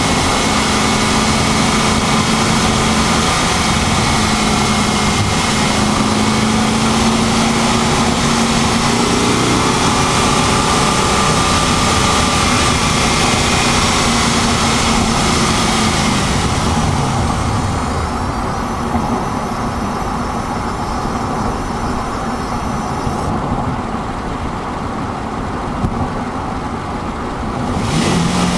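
Pontiac GTO driving with steady engine and road noise. The engine note falls as it slows. Then a high-pitched whine with several tones comes in for about five seconds and cuts off suddenly: the unidentified noise the owner is trying to trace.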